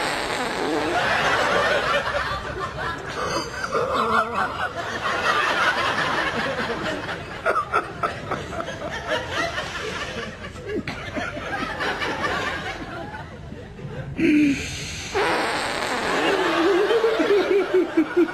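People laughing and snickering, dipping for a moment and then swelling again about three seconds from the end.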